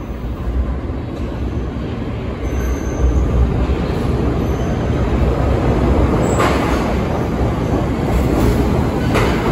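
New York City Subway A train approaching and pulling into an underground station, its rumble and wheel noise on the rails growing louder as it nears, echoing off the tiled walls. Two brief high squeals from the wheels or brakes come in the second half.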